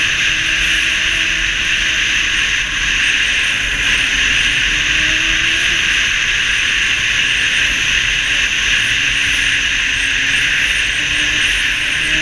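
Snowmobile running steadily at cruising speed: an even, loud hiss with a faint engine tone underneath that drifts slightly in pitch.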